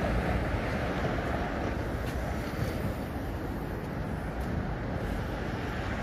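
Steady roar of city road traffic, with wind buffeting the microphone.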